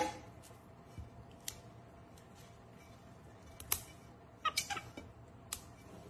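A capuchin monkey snapping fresh green beans over a stainless steel bowl: a few sharp snaps and clicks spaced a second or more apart, with a brief run of short squeaky calls from the monkey about four and a half seconds in.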